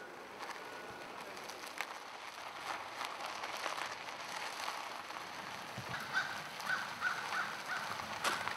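A bird calling outdoors: a quick run of short repeated notes starting about six seconds in, over a steady background hiss.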